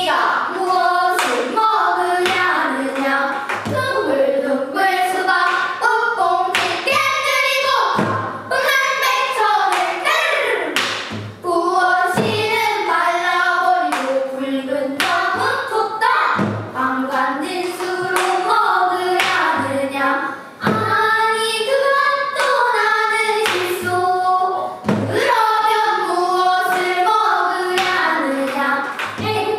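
A group of children singing pansori together, with short low thumps recurring through the song to mark the beat.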